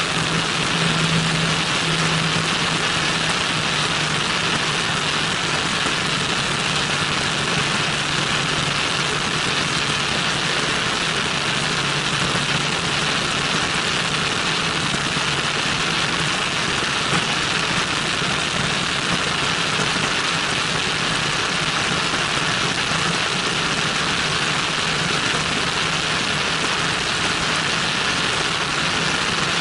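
Cessna 172N in flight, heard from outside the cabin: a steady rush of airflow over the microphone with the four-cylinder Lycoming engine and propeller droning underneath, the engine note a little stronger in the first couple of seconds.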